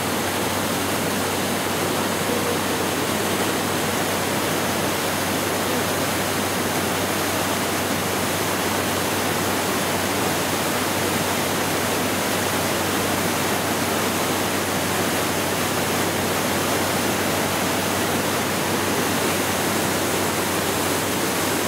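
Loud, steady rush of turbulent white water: the hydroelectric plant's outflow churning past concrete piers and running down rocky rapids.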